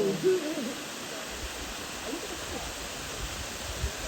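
Steady rush of a tiered rainforest waterfall, an even hiss of falling water with no rhythm or break.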